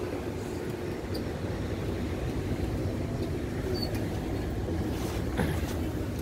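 Steady low hum inside a Taiwan Railways EMU700 commuter train car standing at a platform, with a single short knock near the end.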